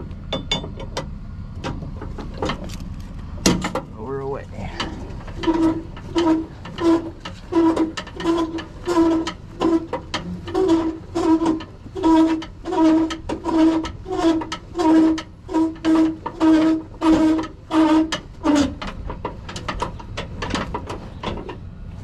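Toyota Tacoma's under-bed spare tire winch being cranked down with the jack-handle rods through the rear bumper, lowering the spare. It opens with metal clicks and a knock as the rods are fitted, then a squeak repeats about every two-thirds of a second while the crank turns, and it stops shortly before the end.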